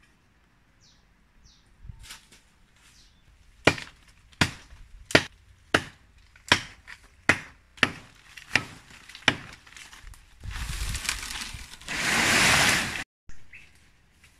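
Blade chopping into a small green tree trunk: about a dozen sharp strikes, roughly one and a half a second, faint at first and then loud. The chopping is followed by about two seconds of loud rushing and crashing of leaves and branches as the tree comes down.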